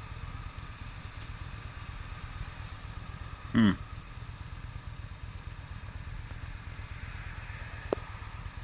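Yamaha V-Star 1300's V-twin idling at a standstill, a steady low rumble. A short vocal sound cuts in about three and a half seconds in, and a single click comes near the end.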